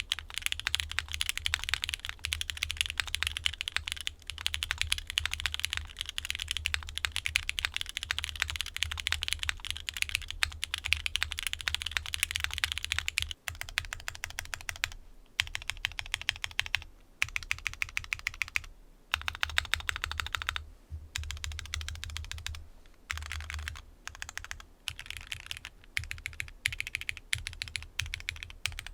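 Typing test on a Mode Envoy mechanical keyboard fitted with lubed Purple Slush linear switches (full nylon housings), in an aluminium case with an FR4 plate and DCX keycaps. It is a fast, continuous run of key presses with a crisp, deep sound, broken by a few brief pauses in the second half.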